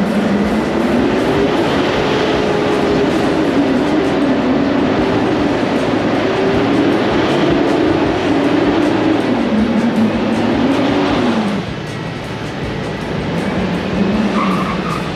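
Mitsubishi Nativa diesel SUV engine accelerating hard from a standing start, the revs climbing and falling several times as it shifts up through the gears. About eleven seconds in it drops back to a lower, quieter run.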